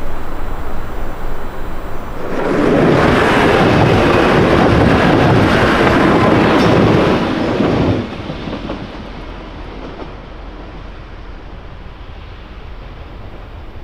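A TransPennine Express Class 185 diesel multiple unit passes close by at speed, a loud rush of engine and wheel noise with some clickety-clack over the junction, lasting about five seconds from about two seconds in. The sound then drops suddenly to the quieter, steady running of a unit approaching slowly.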